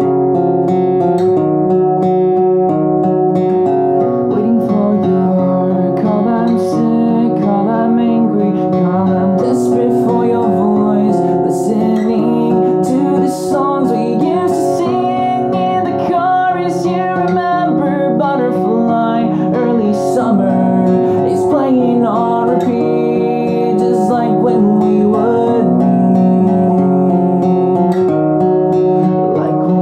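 Acoustic guitar played with a man singing along, picked up by an on-camera Rode VideoMicro microphone.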